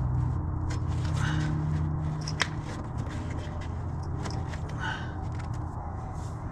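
Scraping and scattered light clicks of hands working plastic heater-box parts loose inside a Jeep's dashboard, over a steady low hum.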